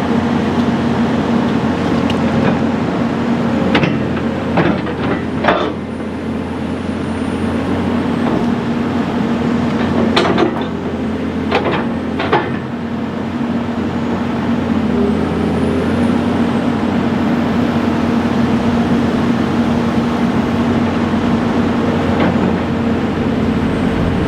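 Komatsu excavator's diesel engine running steadily under operation, with a few short, sharp mechanical noises about four to five seconds in and again around ten to twelve seconds in.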